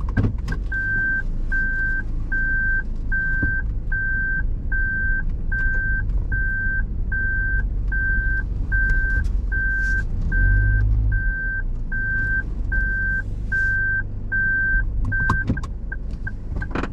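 A car's in-cabin reversing or parking-sensor beeper: one high electronic beep repeating a little over once a second, quickening to short rapid beeps near the end, over low engine and road noise as the car manoeuvres slowly.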